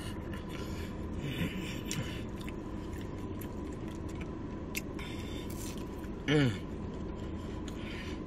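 Quiet mouth sounds of someone chewing food, with a short falling hum of enjoyment about six seconds in.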